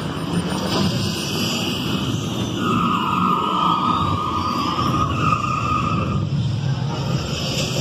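Ride vehicle of Epcot's Test Track running through a dark show scene, a steady rumble under the ride's electronic sound effects, with a held electronic tone for about three seconds in the middle.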